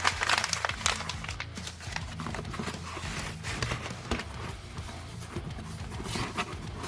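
Rustling and irregular tapping and clicking of packing materials being handled, loudest in the first second, over soft background music.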